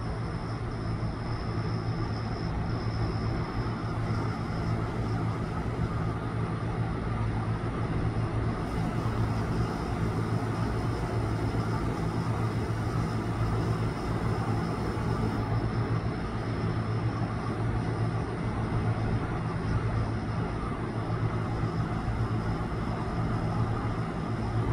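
Steady low mechanical hum with an even rushing noise over it, unchanging in level.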